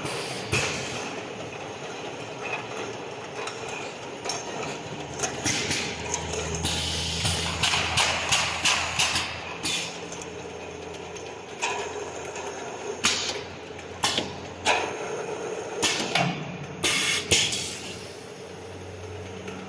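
Automatic can washing and gravity filling line running: a steady machine hum with many sharp clanks and knocks of cans and machine parts, bunched around the middle and again near the end. A low motor hum comes in partway through, drops out and returns near the end.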